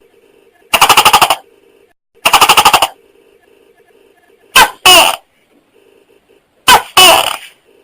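Tokay gecko calling: two rapid stuttering calls, then two two-part 'to-kek' calls, each a short note followed by a longer one that falls in pitch, with a faint steady hum between them.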